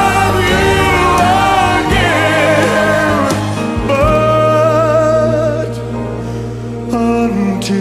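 A slow, sentimental song: a singer holds long notes with vibrato over sustained accompaniment.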